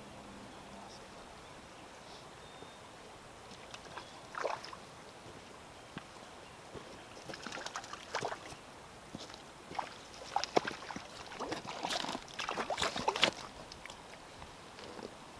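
Hooked brook trout splashing and thrashing at the water's surface in irregular bursts, starting about four seconds in and growing more frequent and louder toward the end.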